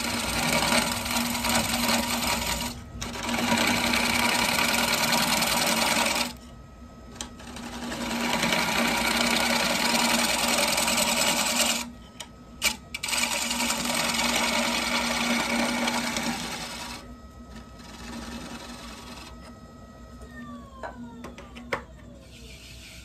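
Wood lathe running while a scraper cuts inside an ash bowl: four long passes of scraping noise, a few seconds each, over the lathe's steady hum. Near the end the cutting stops and the lathe's tone falls as it winds down.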